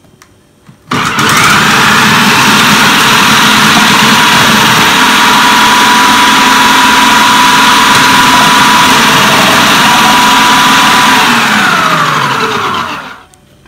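Idealife IL-222 electric food processor's 800 W motor switches on about a second in. It runs with a loud, steady whine while its French-fry cutting disc slices potatoes pushed down the feed tube. Near the end it is switched off and winds down, falling in pitch.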